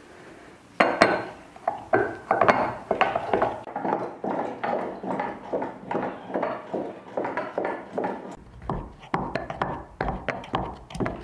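Stoneware dasher butter churn being worked by hand, the wooden dasher plunging up and down through the cream. It makes a steady rhythmic knocking and splashing at about two to three strokes a second, starting about a second in.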